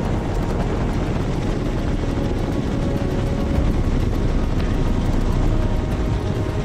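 Helicopter in flight, heard from a camera mounted on its fuselage: a steady, dense rumble of rotor and engine.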